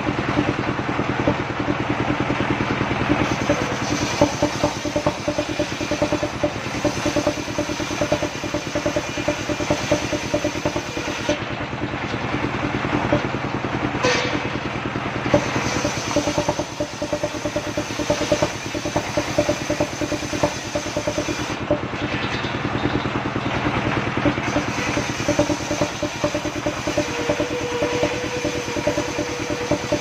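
Engine of a mobile circular sawmill running steadily while its saw blade rips a log lengthways into battens. A bright cutting hiss rises over the engine in long passes and drops out twice as the wood is repositioned.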